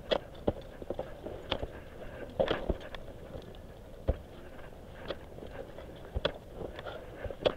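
Ice axe picks swung into hard snow and crampons kicking in: irregular sharp thuds and crunches, roughly one or two a second.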